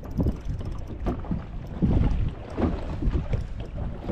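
Wind buffeting the microphone aboard a fishing boat, with water noise around the hull, rising and falling in irregular gusts.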